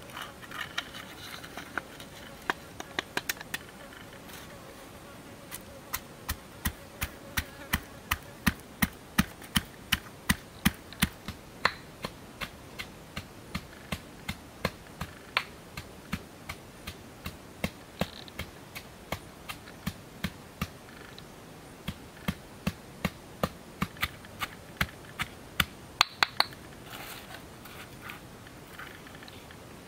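A long run of sharp, evenly spaced taps, about two to three a second, starting about six seconds in and stopping a few seconds before the end.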